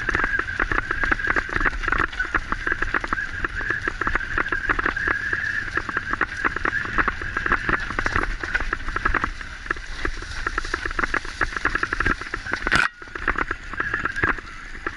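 A mountain bike jolting fast over a rough dirt and leaf-covered trail, heard through a bike-mounted camera: constant rattling and bumping over rushing noise, with one sharp knock about thirteen seconds in.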